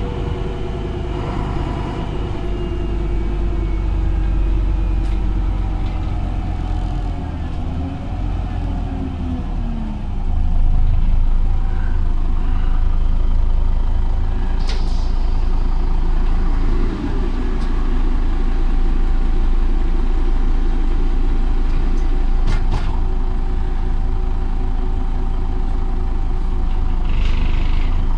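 MAN NG articulated bus heard from inside while driving: diesel engine and drivetrain drone steadily, falling in pitch about eight to ten seconds in, then pulling louder. A few sharp knocks from the body come midway, and a short hiss of air sounds near the end.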